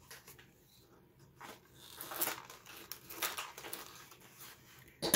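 Paper chip bag being rolled through a hand-turned roller paper crimper, the paper crinkling as the rollers press a crimp into its bottom end: a run of irregular soft crackles, most of them in the middle of the stretch.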